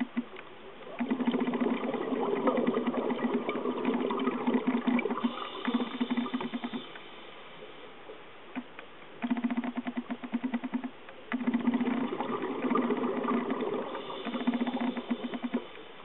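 Scuba regulator underwater: exhaled bubbles rattling out in bursts of one to four seconds, breath after breath, with short quieter pauses between them.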